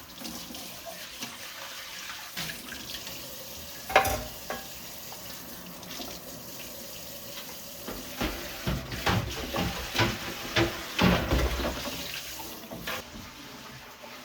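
Kitchen tap running steadily into a sink, with a sharp knock about four seconds in and a run of clattering knocks later on as things are handled under the water.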